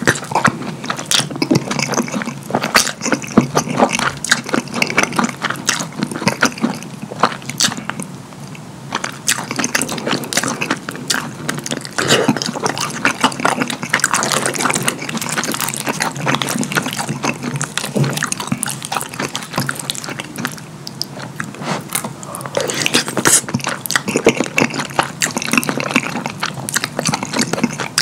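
Close-miked wet chewing and lip smacking on mouthfuls of cheesy lasagna: a dense run of sticky, wet clicks, with a wooden spoon scooping from the pan.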